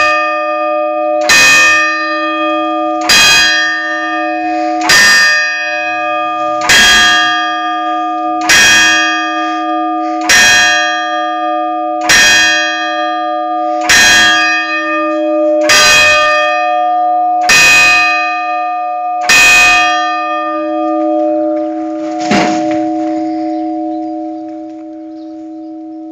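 Church bell tolling noon: eleven single strokes, evenly spaced about 1.8 s apart, each ringing with many overtones. After the last stroke the bell's hum carries on and slowly fades, and a faint knock comes about three seconds later.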